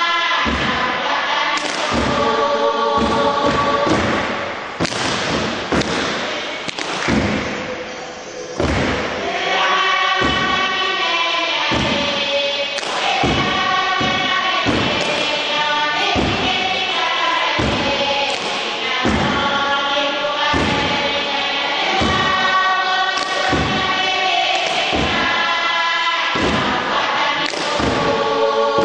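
A Kiribati dance song: a seated group chanting in unison and harmony, with steady heavy thumps, about two a second, of hands beating a wooden box.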